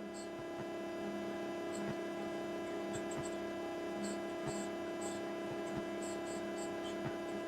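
A steady hum of a few held tones that does not change, with faint light ticks scattered over it.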